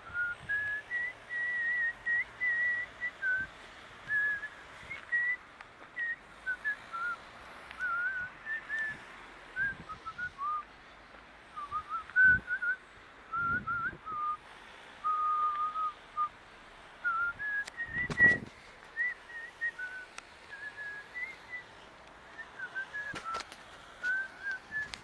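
A person whistling a wandering tune of short notes and little glides, with a few low thumps on the microphone, the loudest about eighteen seconds in.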